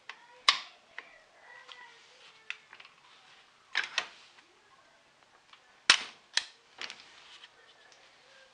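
Sharp metal clicks and clacks of an AR-15 being closed up: the bolt carrier group and charging handle seated in the upper receiver, the upper shut onto the lower receiver and the rear takedown pin pushed home. About half a dozen separate clacks, the loudest about four and six seconds in.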